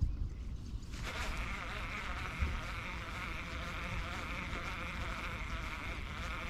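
Abu Garcia Revo4 S baitcasting reel being cranked steadily to retrieve a lure, a continuous fine whirring buzz that starts about a second in.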